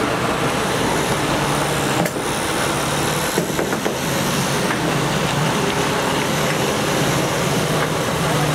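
Iveco Stralis truck's diesel engine running steadily at low revs as the tractor unit moves slowly.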